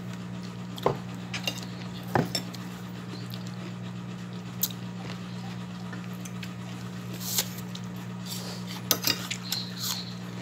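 Fork clinking and scraping against an enamel plate in scattered sharp knocks, with a quick cluster of them near the end, over a steady low hum.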